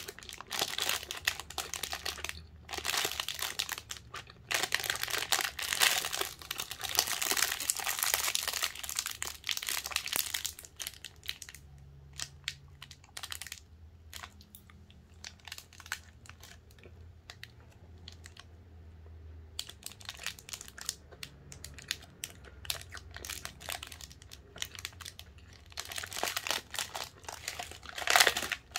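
Clear plastic food wrapper crinkling and crackling as hands open it and handle the soft red-bean cake inside, dense for the first ten seconds or so, softer for several seconds, then crackling again. Near the end a second snack packet rustles as it is picked up, the loudest moment.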